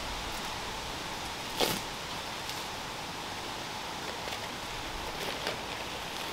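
Faint rustling and crackling of dry birch bark and leaves being picked up from the forest floor and handled, with one louder crackle a little under two seconds in, over a steady hiss.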